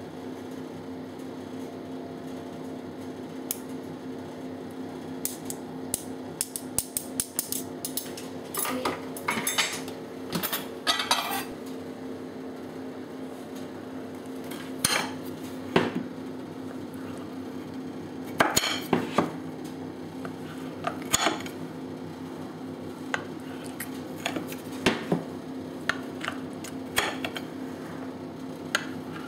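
Metal spoon scraping and tapping in a wire-mesh sieve as icing sugar is sifted, in quick clusters, then a large kitchen knife clicking against a glass pie dish every second or two as a cheesecake is cut into slices. A steady low hum runs underneath.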